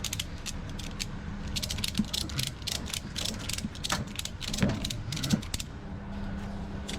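Ratchet strap being cranked tight over a load of refrigerators, the pawl clicking in quick runs of ratchet strokes, with a steady low hum underneath.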